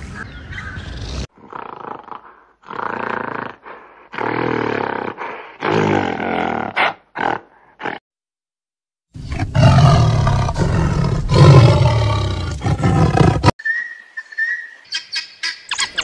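A string of wild animal calls cut one after another. First come short pitched calls and grunts from a mountain gorilla. After a brief silence a tiger roars loudly for about four seconds, the loudest part. Near the end come thin high twittering chirps from African wild dogs.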